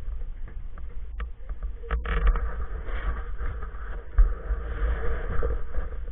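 Low steady rumble of a gondola cabin in motion, with a few sharp knocks about one and two seconds in.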